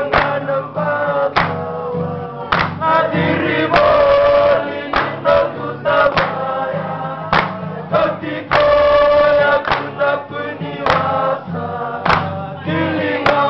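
A group of young Fijian men singing a serenade together in harmony to a strummed acoustic guitar, with sharp chord strokes cutting in every second or so.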